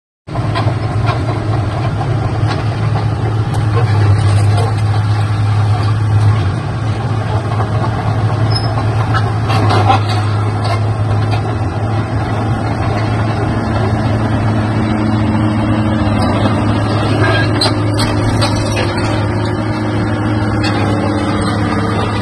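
Komatsu PC200-7 excavator's six-cylinder turbo diesel running with a steady low drone, a little louder for about the first six seconds, with a few short knocks from the machine.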